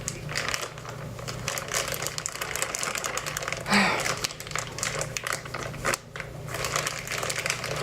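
Plastic piping bag of icing crinkling and crackling as it is handled and squeezed, with one louder rustle about halfway through.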